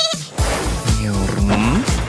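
Upbeat cartoon background music with a steady beat.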